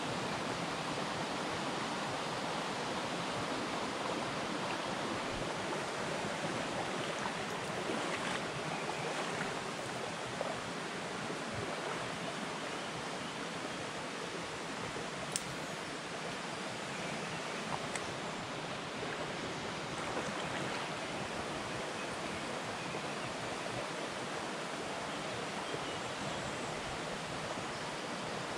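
Steady rushing of a small river's flowing water, with a few faint ticks about halfway through.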